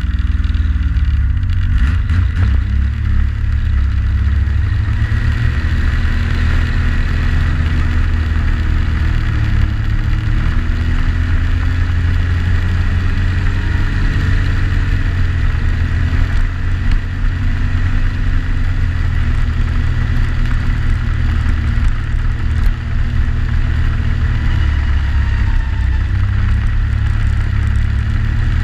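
Yamaha Sidewinder snowmobile's turbocharged three-cylinder four-stroke engine running under way, a loud, steady low drone whose pitch rises and falls gently with the throttle.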